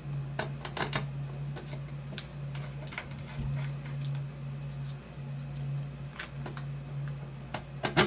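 Small screws and a precision screwdriver clicking and ticking against a graphics card's back plate as the screws are started by hand. The light clicks come irregularly, a dozen or so, over a steady low hum.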